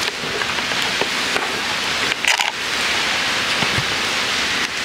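Steady rain falling, heard from inside a glamping dome: an even hiss, with one brief louder sound a little over two seconds in.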